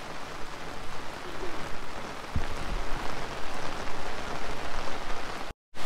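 Heavy rain falling steadily, with a brief low thump a little over two seconds in; the sound breaks off abruptly near the end.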